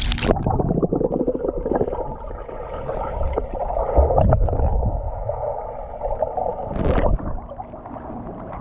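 Muffled gurgling and sloshing of pool water around a partly submerged camera as a swimmer does freestyle strokes past it, with a brief sharper splash about seven seconds in.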